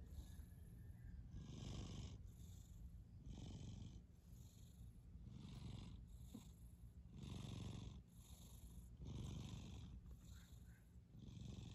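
A domestic cat purring faintly while asleep. The purr swells and fades with each breath, about every one and a half seconds.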